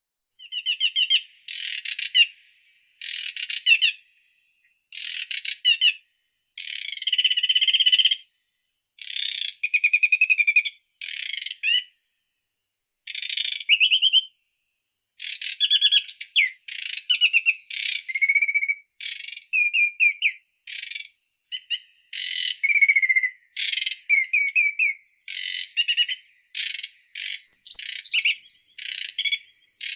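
A songbird singing in trilled phrases about a second long, separated by short pauses, the phrases coming thicker and faster in the second half. Near the end a second, higher-pitched bird joins in briefly.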